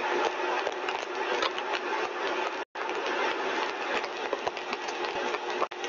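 Lab compressor rig running steadily at full design speed of 7200 RPM: a dense rush of air and machine noise with a few faint steady tones. The sound cuts out for a split second a little under three seconds in.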